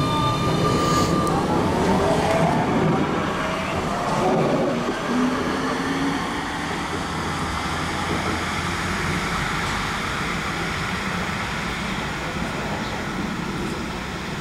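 Bombardier CR4000 tram pulling away on its electric traction motors, whose whine shows as several pitches gliding through the first few seconds. A steady rumble of wheels on rail follows and slowly fades as the tram draws away.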